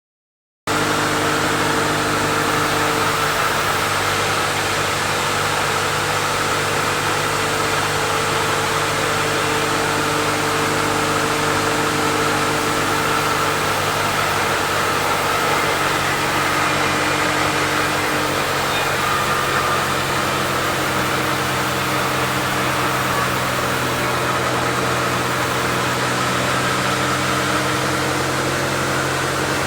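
Sawmill machinery running steadily: a constant motor hum with a broad hiss over it, starting about half a second in.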